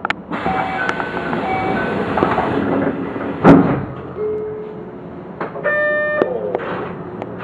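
Sounds of a Keio electric commuter train standing at the platform before departure: a hiss with a few steady tones for the first couple of seconds, a single loud thump about halfway through, then a short buzzer tone with a click near the end.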